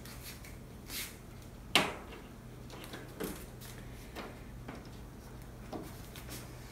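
Plastic retaining clips on the edge frame of an LED TV panel being unhooked by hand one after another: a string of sharp plastic clicks and snaps, the loudest about two seconds in.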